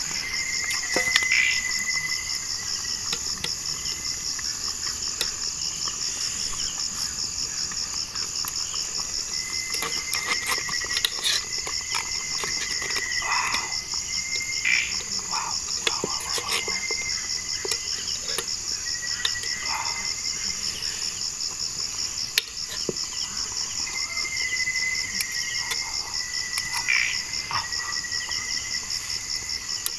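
Night chorus of crickets and other insects: a steady, fast-pulsing high trill, with a second, lower trill starting and stopping every few seconds. Scattered light clicks and clinks from a spoon against a cooking pot.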